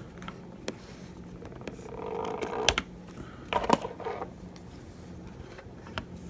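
Scattered light clicks and taps of small tools and parts being handled on an opened iPhone 7 Plus, with a brief soft scrape about two seconds in and the clearest clicks near the middle, over a faint steady low hum.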